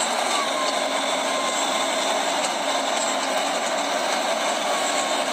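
Diesel engine of a Timberjack log skidder running steadily as the machine crawls over rocks on its chained tyres.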